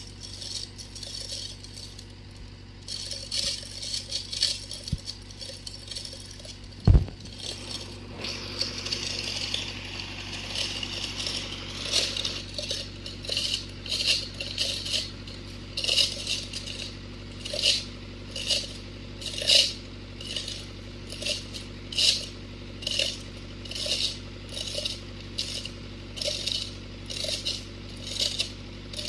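Repeated short metallic clinks and rattles, about one a second through the second half, over a steady low machine hum, with one sharp knock about seven seconds in.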